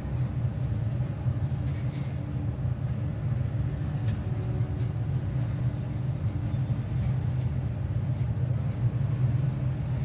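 A steady low rumble, with a few faint short clicks. No budgie chatter stands out.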